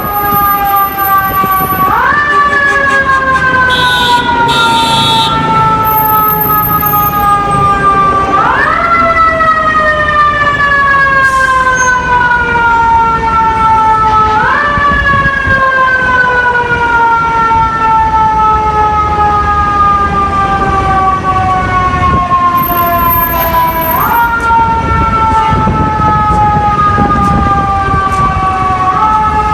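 Fire truck's Federal Q mechanical siren, spun up quickly four times and left to coast down slowly in pitch between each spin-up, over a low rumble of engine and traffic.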